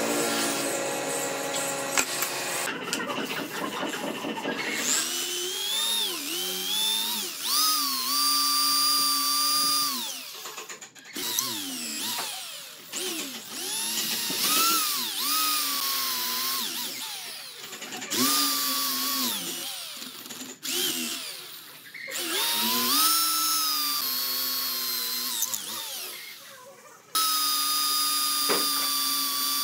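Corded electric drill boring into a thick wooden log, starting a few seconds in. The motor runs up to speed, dips in pitch as the bit bites, and stops and starts again several times.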